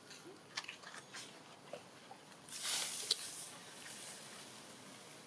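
A couple of faint, short squeaks from a baby long-tailed macaque over quiet outdoor background. A brief rustling hiss with a sharp click comes about three seconds in.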